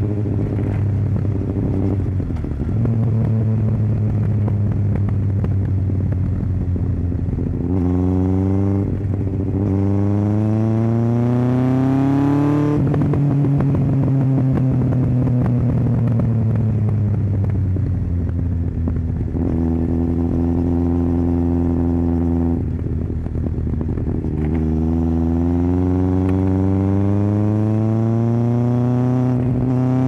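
2001 Yamaha FZS1000 Fazer's inline-four engine running in traffic. Its revs climb steadily about a third of the way in, then fall away slowly and hold steady for a while, and climb again near the end.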